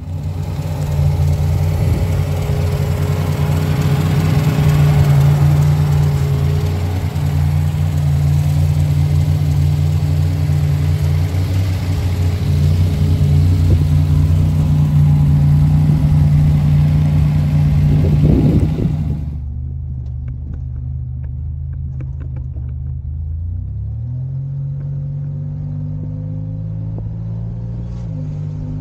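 Buick Grand National's turbocharged V6 running as the car drives, loud with a broad rush of noise over the steady engine note. Partway through the sound cuts sharply to a quieter, steady engine note, which rises in pitch a few seconds later.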